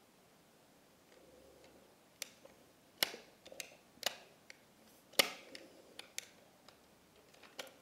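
Light plastic clicks and taps as a Polly Pocket plastic compact toy is handled and fiddled with: about a dozen short, sharp clicks at uneven intervals, the loudest about three seconds and five seconds in.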